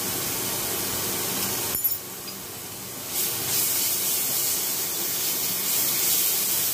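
Onions and chili powder sizzling in hot oil in a nonstick frying pan as they are stirred. There is a sharp knock about two seconds in, after which the sizzle drops for a second before rising again.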